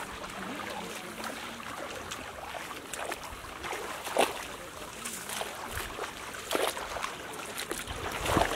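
Water sloshing and splashing as several people wade through shallow water dragging fishing nets, with a few louder splashes from about four seconds in.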